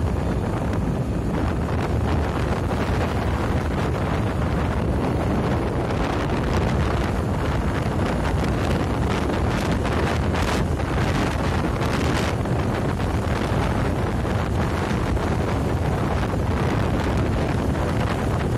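Steady wind buffeting the microphone on a moving vehicle, over a constant rush of road and vehicle noise, with a few brief hissy gusts about halfway through.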